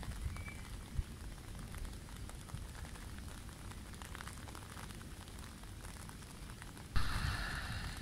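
Wind rumbling on the microphone over a fine, steady patter of light rain on the river. About seven seconds in, a sudden louder gust rushes in.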